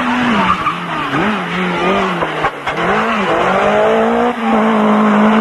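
Rally car engine at high revs through a corner, its pitch dropping and rising several times as the throttle comes off and on, then climbing and holding steady under full acceleration in the last couple of seconds.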